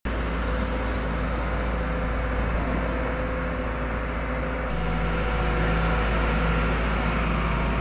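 Sumitomo SH210-6 excavator's four-cylinder diesel engine running steadily with a low rumble. The engine is reported as misfiring and short of power.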